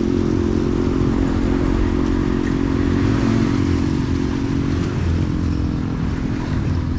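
Motorcycle engine of a motorized tricycle running at a steady speed, with a constant hum and road and wind noise around it.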